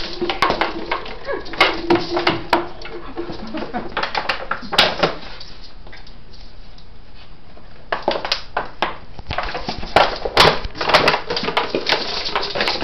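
Empty plastic water bottle crackling and clicking in clusters as a dog chews and shakes it, with a quieter pause about halfway through.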